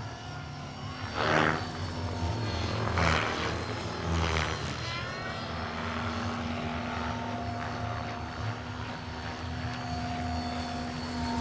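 Large-scale RC model CH-113 Labrador tandem-rotor helicopter in flight: a steady whine over a low rotor thrum. Three louder whooshes rise and fall about one, three and four seconds in.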